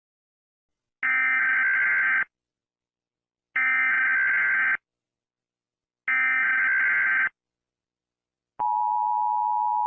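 Emergency Alert System SAME header: three buzzy bursts of digital data tones, each a little over a second long with silences between, which encode the start of an alert. Near the end, the steady two-tone EAS attention signal begins.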